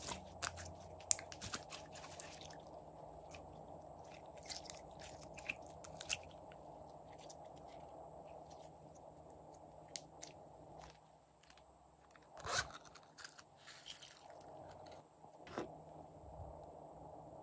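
Slime being squeezed, folded and stretched by hand, making scattered sticky crackles and clicks.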